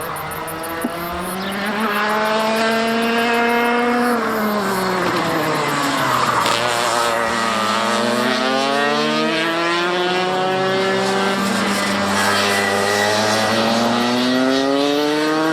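Radio-controlled model airplane's motor and propeller running at speed, its pitch falling and rising several times as the plane flies past and turns back, over a steady low hum.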